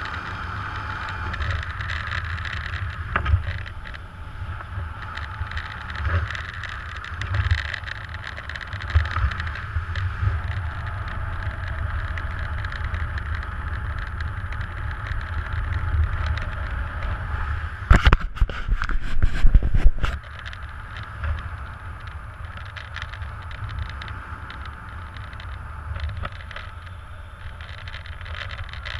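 Wind rushing over the camera microphone in paraglider flight: a steady rush with low gusting rumble that rises and falls. About two-thirds of the way through comes a louder burst of knocking and buffeting lasting about two seconds.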